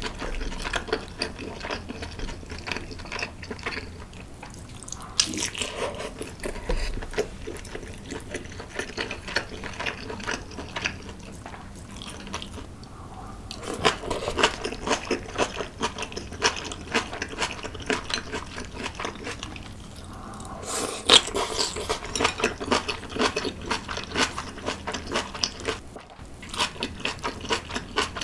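Close-miked eating sounds: continuous irregular chewing and crunching mixed with wet, liquid mouth and soup sounds. There are short lulls between mouthfuls.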